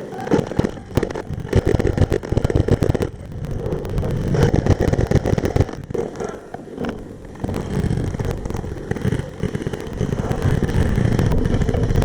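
Electric airsoft rifle (AEG) firing in several rapid bursts of about a second each, a fast rattle of shots over a steady low rumble.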